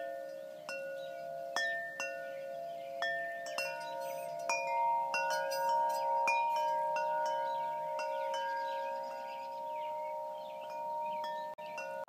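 Wind chimes ringing: notes struck at irregular moments, each ringing on and overlapping the others.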